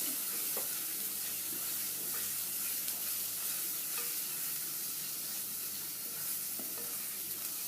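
Onion paste and ground spices sizzling steadily in hot oil in a deep pan while being stirred, with a few faint light knocks of the spoon.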